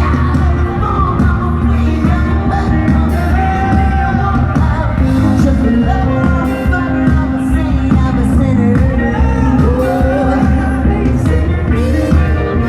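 Live band music with a lead vocalist singing a wavering melody over a steady, heavy bass line, recorded from the audience.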